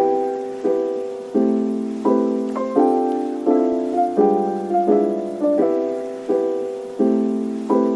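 Background music: a mellow lofi piano or electric piano playing chords, a new chord struck about every 0.7 seconds and fading away between strikes.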